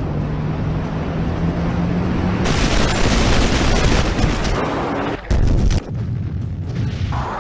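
Dramatized air-attack battle sound effects: a steady roar with a low tone rising slowly, turning at about two and a half seconds into a harsher rush of noise, then a heavy bomb explosion just after five seconds in.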